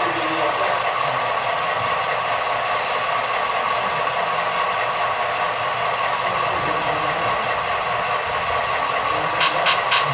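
Model train freight cars rolling steadily past on the layout track, a continuous clatter of small metal wheels, with three quick clicks near the end.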